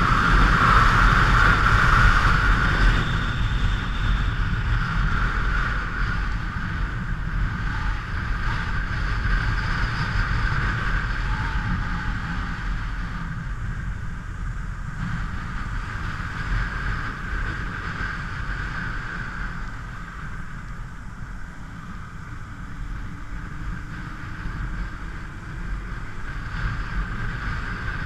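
Motorcycle on the move: engine and road-wind noise as a steady rumble, loudest in the first few seconds and then gradually growing quieter.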